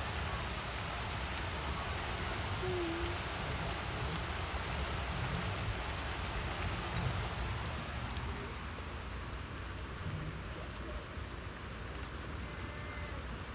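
Steady rain falling, an even hiss that eases slightly about halfway through.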